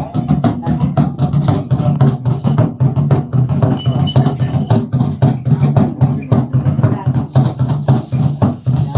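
Fast, even percussion beating with a low chanting voice under it, typical of a Limbu shaman's ritual chant.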